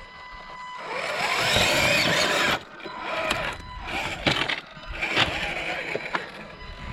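RC4WD Trailfinder 2 scale crawler's electric motor and gear drivetrain whining, rising and falling in pitch as it works over rocks, loudest for the first couple of seconds and then dropping off. Several sharp clicks and knocks follow, as the chassis and tyres strike rock.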